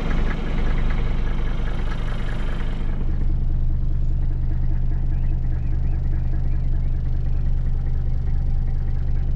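Mercedes W126 300SD's five-cylinder turbodiesel idling steadily just after start-up, with the dashboard vibrating from the engine shake. From about three seconds in it is heard from inside the cabin, more muffled.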